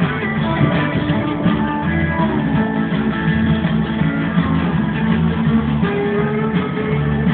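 Guitar-led music playing steadily, with a melody over a steady bass line.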